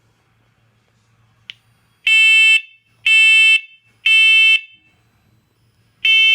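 Combination smoke and carbon monoxide alarm in self-test, sounding its smoke pattern: three loud, high, piercing beeps about a second apart, a pause, then the next round of three beginning near the end. This temporal-three beep signals smoke.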